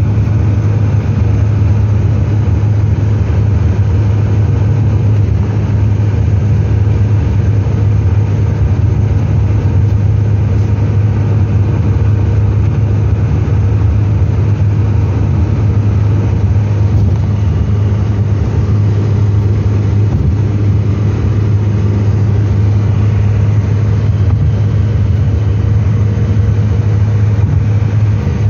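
Hillman Super Minx's four-cylinder engine running steadily at cruising speed, heard from inside the cabin as a steady low drone with a hiss of road noise.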